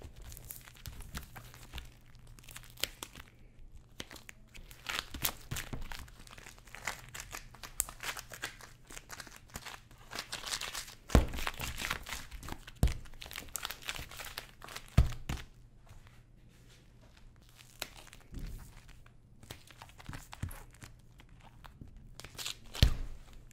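Gloved hands folding and pressing warm boiled-sugar dough on a silicone baking mat: irregular crinkling and tearing noise as the sugar is worked and pulled off the mat, with a few sharp knocks. Near the end, scissors cut into the sugar sheet.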